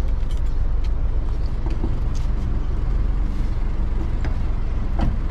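A car engine idling steadily, with a few light knocks and rattles from fishing gear being handled in the open trunk.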